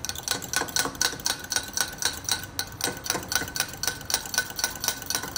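Metal spoon stirring in a ceramic mug, clinking against its sides in a quick, even rhythm of about six clinks a second with a light ring, stopping near the end.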